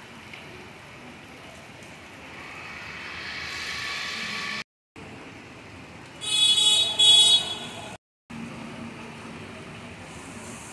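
Steady hiss of heavy monsoon rain. A road vehicle grows louder for a couple of seconds, then, a little past the middle, a vehicle horn gives two short honks, the loudest sounds. The sound cuts out briefly twice.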